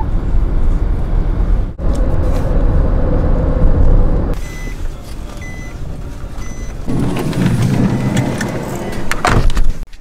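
Car driving on the road heard from inside the cabin, a steady low engine and road rumble, broken by abrupt cuts between clips. Partway through, three short high beeps about a second apart.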